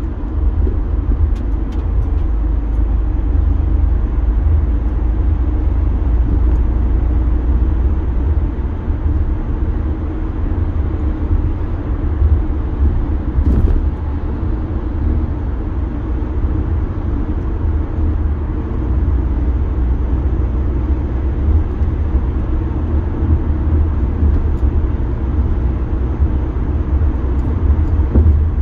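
Steady road and tyre noise of a car cruising at highway speed, heard inside the cabin as a constant low rumble with a hiss above it.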